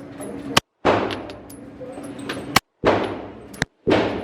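Three single gunshots about one to two seconds apart, each a sharp crack followed by a long fading echo.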